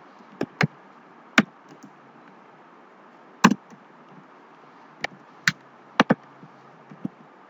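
Computer keyboard keys clicking as a few characters are typed slowly: about a dozen sharp, irregularly spaced clicks over a faint steady hiss.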